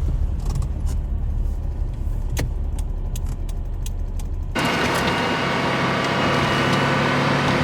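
Car running: a low rumble with a few light clicks, then an abrupt change about four and a half seconds in to a louder, steady engine and road noise with a constant low hum.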